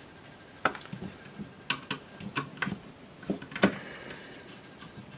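Screwdriver and screws clicking and tapping against the power-supply cover of a vintage calculator, about seven sharp, irregular clicks with the loudest a little past halfway, as the screwdriver is brought to the cover's second fixing screw.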